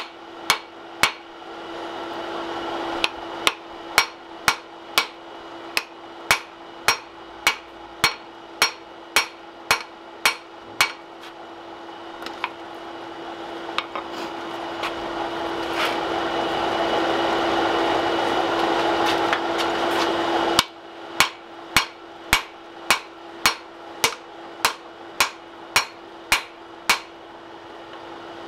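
Hand hammer striking a red-hot axe bit on a steel anvil, forging it out in steady blows about two a second. The blows thin out and stop for several seconds in the middle, then resume.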